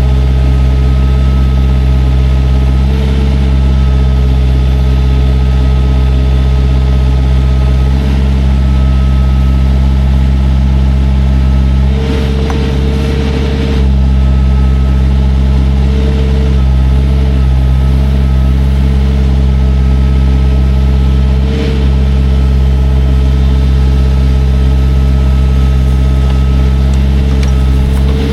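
A heavy machine's engine running steadily throughout, with a rougher, noisier stretch of a couple of seconds about twelve seconds in.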